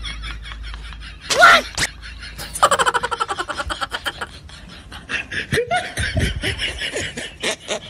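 Laughter and snickering, in runs of quick repeated laughs, with a brief sharp pitched sound about a second and a half in.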